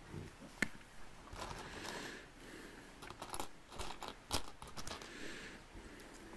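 Loose plastic LEGO bricks clicking and clattering as hands rummage through a pile of pieces: a string of sharp little clicks between stretches of soft shuffling.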